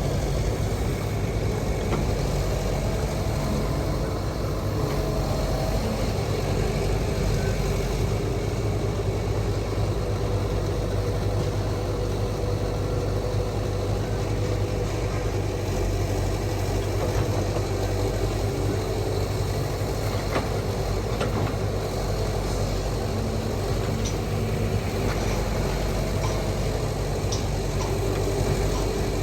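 Diesel engine of a hydraulic excavator running steadily at work, a constant low hum with some faint clanks over it.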